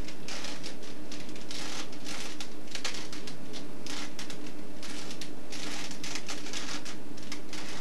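Puzzle cube being turned quickly by hand: a fast, irregular run of plastic clicks and rattles, over a steady low hum.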